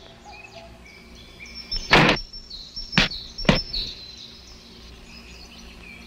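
Birds chirping in the background of a cartoon soundtrack, broken by a heavy thud about two seconds in and two sharp knocks about a second and a second and a half later.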